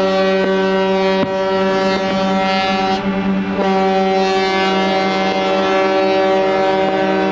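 Ship's horn of the Blue Star Paros car ferry sounding one long, steady blast with a strong, even tone. It dips briefly about three seconds in, and a second, slightly wavering horn tone joins later.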